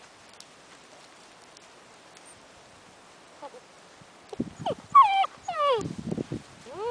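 Six-week-old Great Dane puppies whining and yelping: a string of short, high, downward-falling whines that starts about four seconds in, with some low rough sounds between them.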